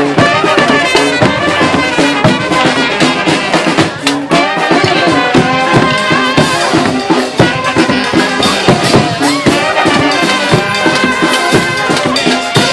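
Brass street band playing a hora, trumpets and trombones carrying the tune over a steady percussion beat.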